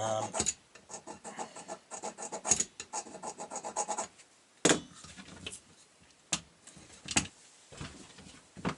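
A scribe scratching a mark into a quick-grip clamp's hardened steel bar, a run of quick short strokes, followed by five separate sharp knocks.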